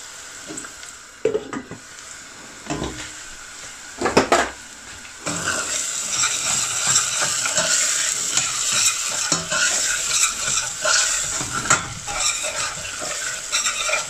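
Chopped onion frying in olive oil in a stainless steel saucepan, sizzling as a metal spoon stirs it, scraping and clinking against the pan. A few knocks in the first seconds, then the sizzling and stirring get louder about five seconds in. The onion is at the softening stage.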